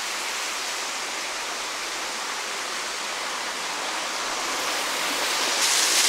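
Waterfall rushing: a steady hiss of falling water, growing louder over the last couple of seconds and brighter about five and a half seconds in.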